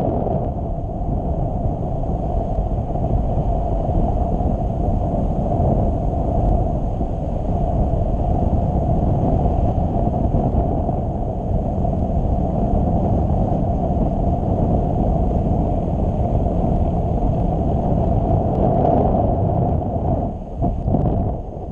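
Wind rushing over the microphone of a camera carried in paraglider flight: a steady, loud, low rush of airflow noise that cuts off at the very end.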